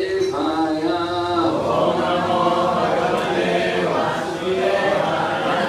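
Devotional chanting in call and response. A single voice sings a line of held notes for about a second and a half, then a group of voices answers together.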